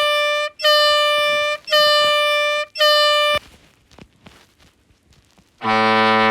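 Sound effect played from a prank sound app: four evenly spaced, high-pitched steady tone blasts of about a second each, then after a short gap a much deeper horn-like blast begins near the end.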